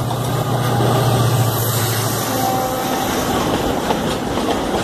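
A WDG4D diesel-electric locomotive passes close by with a steady low engine drone. About two seconds in, the drone gives way to the rumble and clatter of loaded flat wagons rolling past.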